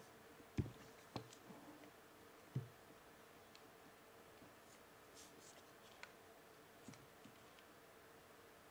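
Soft knocks and clicks of a plastic webcam and its folding mounting clip being handled, three louder knocks in the first three seconds and a few faint ticks later, over a faint steady hum.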